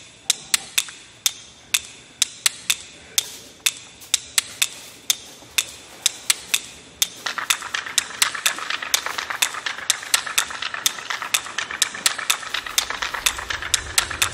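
Cooked crab's shell and leg tips clicking and tapping on a granite countertop as it is moved about by hand: sharp separate clicks, a few a second, that come thicker and are joined by a steady crackle about halfway through.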